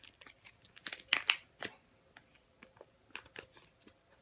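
Crinkling and light clicking of things being handled: a short flurry about a second in, then a few scattered faint clicks.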